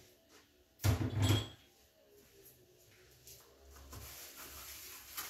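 A single dull knock about a second in, then a faint steady hiss from about four seconds in as the pot of sugar-cone syrup with lemon heats on the stove.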